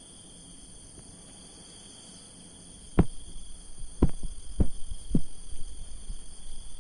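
Handling noise from a phone being moved while filming: four dull thumps between about three and five seconds in, with smaller knocks and a low rumble. A steady high-pitched whine sits under them throughout.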